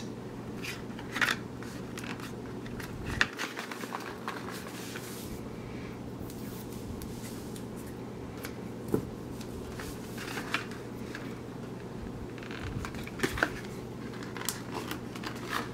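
Black electrical tape being pulled off the roll and pressed onto the corners of cut-down cardboard box trays, with a few sharp scissor snips cutting the tape. The handling comes as scattered clicks and rustles over a low steady hum.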